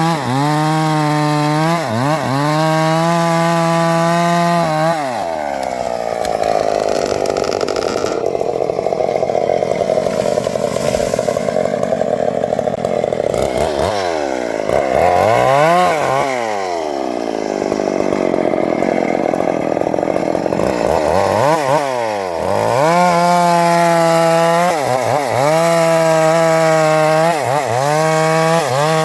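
Two-stroke chainsaw idling, then revved to full throttle about five seconds in and held high while cutting acacia wood, its pitch sagging and recovering under load, before dropping back to a lower idle near the end.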